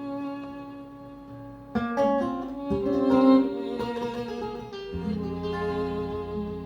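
Instrumental intro of a Vietnamese ballad played back through a pair of B&W DM 330i loudspeakers driven by a vintage Technics SU 9600/SE 9600 pre- and power amplifier: plucked guitar notes over held string chords, with new notes struck about two, three and five seconds in.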